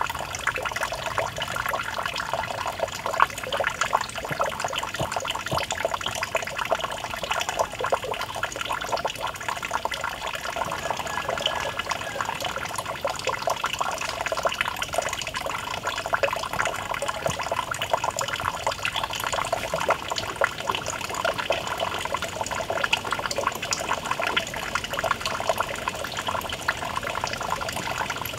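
Small fountain pouring a thin stream of water into a shallow pool, splashing and trickling steadily without a break.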